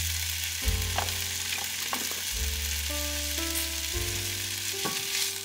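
Chicken sausage slices sizzling in a hot frying pan, with a few clicks of a spatula against the pan as the slices are stirred. Background music with low notes plays underneath.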